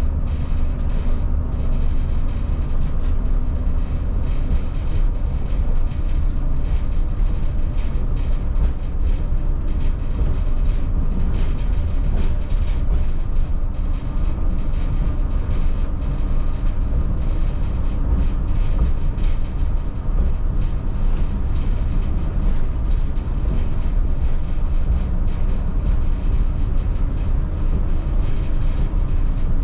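2002 MCI D4500 diesel coach under way: a steady, loud low rumble of engine and road noise, with faint clicks and rattles over it.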